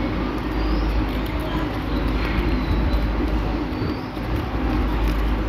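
Steady low rumbling background noise, with faint light crinkles of paper being handled.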